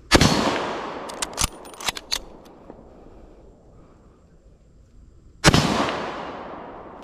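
Two rifle shots from a Mosin-Nagant bolt-action rifle in 7.62×54R, about five and a half seconds apart, each followed by an echo that dies away over a second or more. A few sharp metallic clicks a second or two after the first shot are the bolt being worked to eject the case and chamber the next round.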